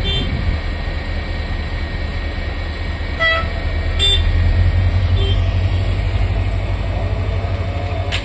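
Diesel engine of a Colmar gantry track-laying machine running steadily with a low rumble, while a warning horn gives several short toots a second or more apart.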